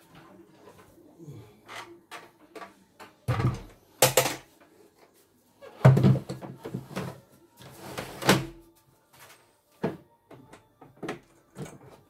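Knocks and clunks of a plastic CNY E900 embroidery machine and its embroidery unit being set down and fitted together on a wooden workbench: a run of sharp knocks with louder thumps about three, four, six and eight seconds in.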